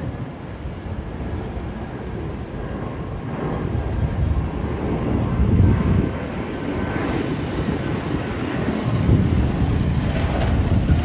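Jet noise from an Airbus A319's two IAE V2500 turbofan engines as the airliner flies overhead: a low, steady rumble that grows louder about four seconds in and then holds.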